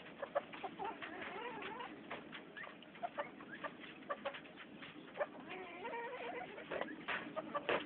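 Chickens clucking: many short, sharp clucks mixed with softer wavering calls.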